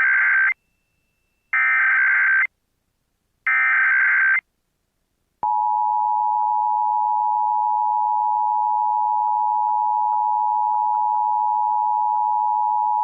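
Emergency Alert System tones: three one-second blips of modem-like SAME header data, about a second apart, then the steady two-tone EAS attention signal starting about five seconds in and holding.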